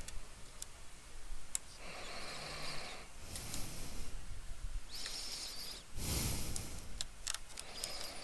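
A plastic pry spatula scraping along the seam of a plastic laptop back case, in several short scratchy strokes, with sharp clicks as the case's clips and edges snap under the tool, most of them near the end.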